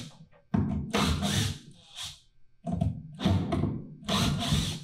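Cordless driver backing screws out of the wooden framing of a stage platform, running in three short bursts with brief pauses between.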